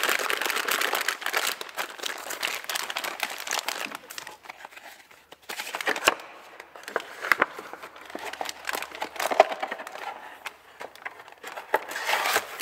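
Plastic sleeve of an MRE flameless ration heater crinkling and crackling as hands fold its top over and press it shut after water has been added to activate it. The noise comes in bursts and is loudest at the start.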